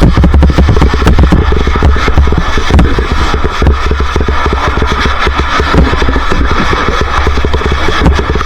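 Motorcycle engine running steadily and loud, its rapid firing pulses heard over a heavy low rumble.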